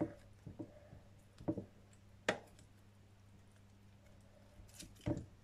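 Hands pulling and tearing at the head of a raw salmon to remove the gills: scattered wet squelches and a few sharp clicks, the clearest about a third of the way in, near the middle and near the end.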